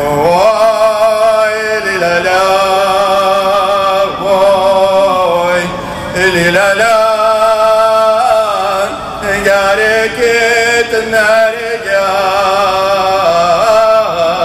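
Folk-rock chanting: long held sung notes in phrases of about two seconds, gliding between pitches, over a steady low drone.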